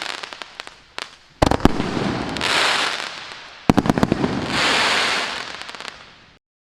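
Maxsem New Times GWM6602 fireworks cake firing its final shots: two quick volleys of sharp reports about two seconds apart, each followed by a long crackling rush of the breaking shells. The sound cuts off suddenly near the end.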